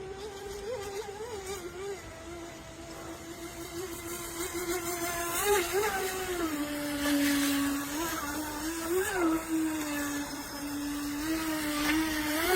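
Brushless electric motor of an RC racing boat whining as it runs on the water. Its pitch wavers up and down, dips lower for a second or two in the middle and climbs again near the end.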